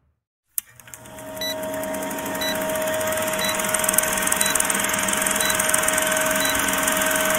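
Old-film countdown leader sound effect: a film projector running with a steady hum, hiss and fine clatter, starting with a click about half a second in, and a short high blip once every second as the numbers count down.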